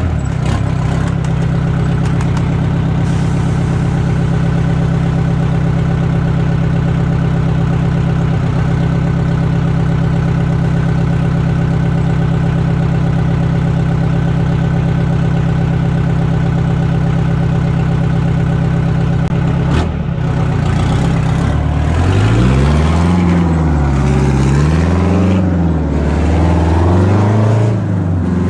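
A vehicle engine held at a steady speed, then revved up and down over and over in the last third, about once a second.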